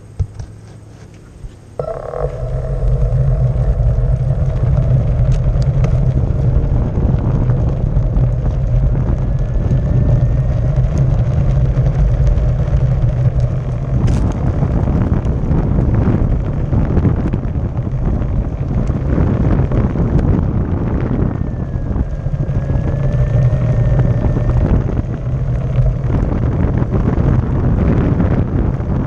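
Onewheel XR electric board setting off and rolling over brick pavers at about 15 mph. A loud, dense rumble with many small knocks, mixed with wind on the board-mounted microphone, starts suddenly about two seconds in, with a steady whine under it.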